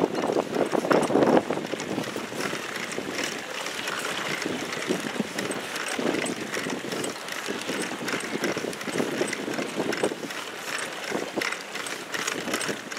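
Choppy waves slapping and splashing against the hull of a small inflatable boat, an uneven wash with frequent short slaps, over wind noise.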